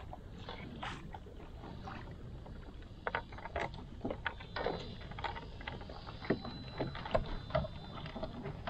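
Light knocks and clicks of gear being handled in a plastic fishing kayak's hull, coming more often from about three seconds in, over a steady low rumble of water and wind on the boat.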